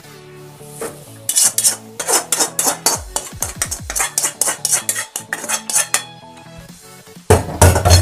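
Steel spoon scraping and knocking cooked instant noodles out of a cooking pan onto a steel plate: a quick run of metallic scrapes and taps, about three or four a second, then a louder clatter near the end.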